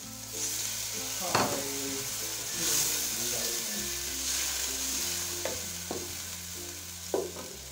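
Onion-tomato masala sizzling in oil in a nonstick wok while a spoon stirs and scrapes it, with a few sharper scrapes standing out. The masala is being fried down (bhuna) over a medium-to-low flame. Soft background music with held notes plays underneath.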